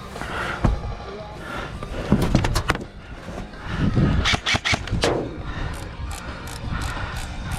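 Airsoft guns firing, several short bursts of sharp cracks separated by pauses.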